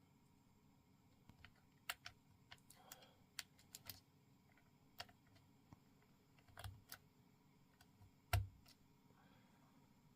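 Keystrokes on a custom-built Keychron K8 Pro mechanical keyboard with OSA-profile PBT keycaps: scattered, irregular clacks, the loudest and deepest one about eight seconds in.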